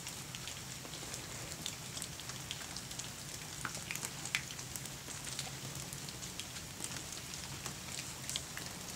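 Light rain pattering on a wet wooden deck: a steady hiss with scattered small drip ticks.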